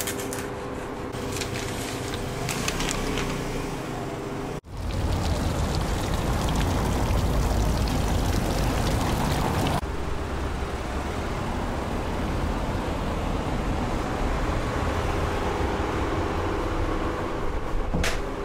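A large knife crunching through a porchetta's crackling skin, crisp clicks over a steady hum. After a sudden cut, a steady low rumble of outdoor street noise.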